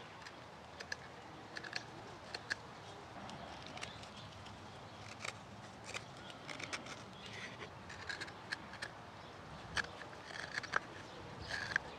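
Morakniv 106 sloyd knife paring alder: short, irregular scraping cuts and light clicks as the blade shaves thin slivers from a spatula blank, a few strokes a second with small pauses between.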